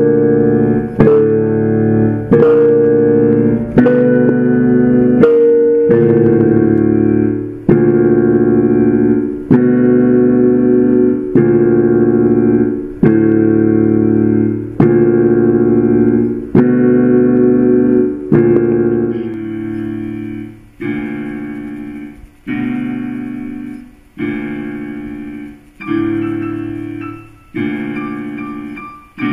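Piano playing slow, held block chords, one struck about every second and a half and left to ring and fade. From about two-thirds of the way through, the low bass notes drop out and the chords sound lighter, fading more between strikes.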